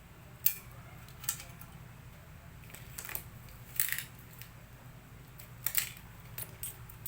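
Scattered light clicks and a few short scrapes of a hand tool working on a laminator's parts, over a steady low hum.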